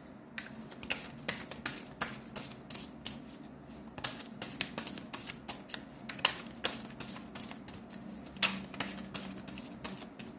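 A deck of tarot cards being shuffled by hand: a run of quick, irregular papery clicks.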